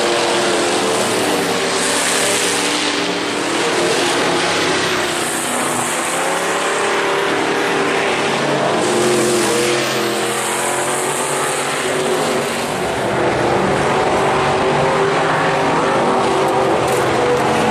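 Dirt-track race cars running practice laps, engines rising and falling in pitch as they go by, over a steady drone from the rest of the field.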